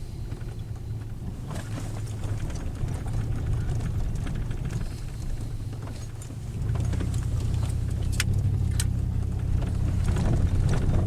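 Vehicle engine and road noise driving up a rough dirt road, a steady low rumble that grows louder about six and a half seconds in, with a couple of short knocks or rattles.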